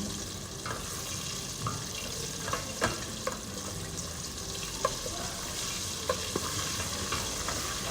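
Battered chicken pieces deep-frying in hot oil: a steady sizzle with scattered sharp pops and crackles.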